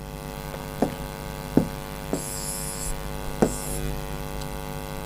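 Steady electrical mains hum with a buzzy, many-toned drone. A few faint clicks come through it, and twice around the middle there is a short, high scratchy hiss.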